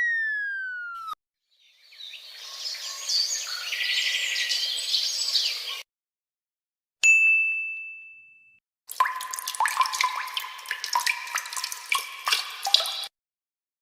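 A run of separate stock sound effects. A falling tone glide cuts off about a second in, followed by a few seconds of busy, hissing high-pitched texture. Then comes a single bright ding that rings and fades, and near the end about four seconds of rapid clicking and clattering mixed with short pitched notes.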